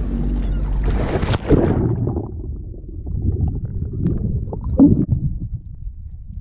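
A diver splashes into the sea off a jet ski about a second in; after that the sound is muffled underwater rumbling and bubbling from a camera below the surface, with scattered small knocks.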